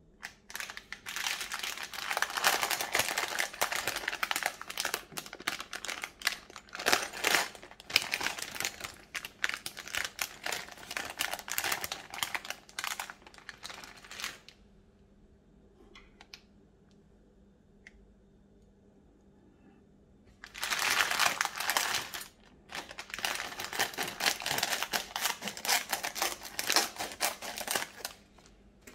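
Thin plastic polybag crinkling as hands handle it, in two long stretches with a pause of about six seconds between them.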